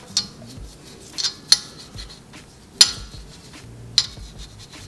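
Sharp metal clinks and taps of tools and parts being handled at the wheel hub, about five at irregular intervals, the loudest nearly three seconds in.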